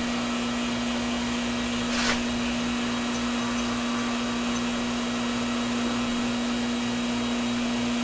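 Metal lathe running with a steady, even motor hum at one pitch while a single-cutter chamfer tool held in a tailstock drill chuck is fed against the end of a small spinning part. A short hiss comes about two seconds in.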